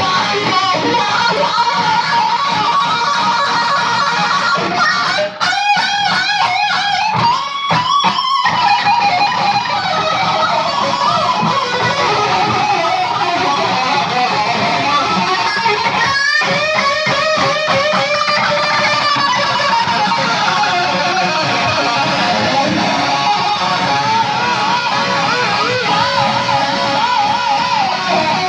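Gibson Les Paul Custom electric guitar played through a Dunlop Cry Baby KH95 wah pedal: lead lines of sustained, wavering notes, with bursts of fast picking about five to eight seconds in and again around sixteen seconds.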